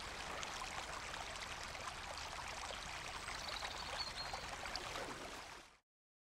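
Shallow river rushing steadily over rocks in small rapids; the sound cuts off suddenly near the end.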